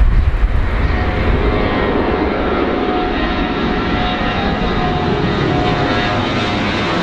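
Four-engine Airbus A340 jetliner climbing out overhead at takeoff thrust: a steady, loud jet-engine rumble with a faint whine from the engines' fans above it.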